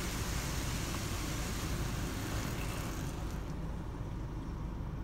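Automatic car wash spraying water onto the car's windshield and body, a dense hiss heard from inside the cabin. The spray cuts off about three seconds in, leaving a steady low rumble.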